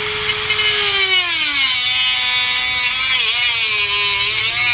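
Dremel rotary tool whining at high speed as it cuts into a wooden rod. About a second in, its pitch drops and then wavers as the motor slows under the load of the cut, which is rubbing hard enough to make the wood smoke.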